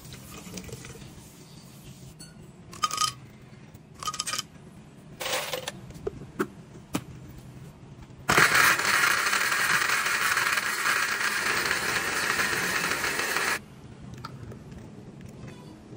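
Countertop blender with a glass jar running for about five seconds, blending banana and kiwi, starting about eight seconds in and cutting off abruptly. Before it, several short clinks and knocks against the glass jar as its lid is fitted.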